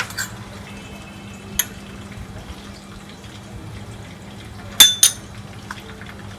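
A few sharp clicks and knocks of kitchenware being handled while sauces are spread on a burger bun, the loudest a quick double click near the end, over a steady low hum.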